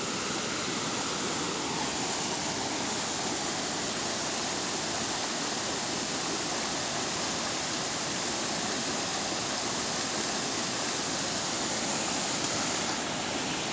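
Steady rush of water pouring over the rock ledges of a large multi-tier waterfall.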